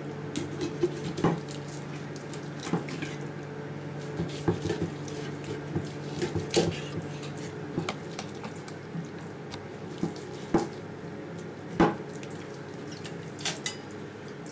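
A large kitchen knife cutting through a whole crucian carp behind the pectoral fin, with scattered knocks and scrapes of the blade and fish on a wooden cutting board. A steady low hum runs underneath.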